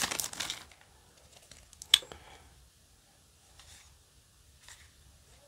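Foil booster-pack wrapper crinkling as the trading cards are slid out, fading within the first second. A single sharp tap comes about two seconds in, followed by faint, soft rustles of the cards being handled.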